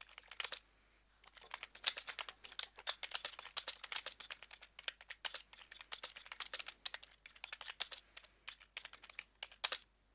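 Typing on a computer keyboard: a quick burst of keystrokes, a short pause, then steady fast typing that stops just before the end.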